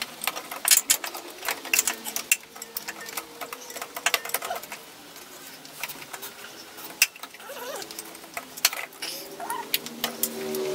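Hand ratchet clicking in quick, uneven runs as a bolt on the engine is worked.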